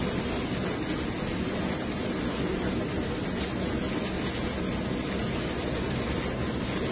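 Muddy floodwater rushing across a road, a steady noise of flowing water.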